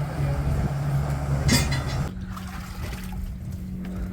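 Boat motor running, then throttled back to a quieter, steady idle about two seconds in, with a brief burst of noise just before the change.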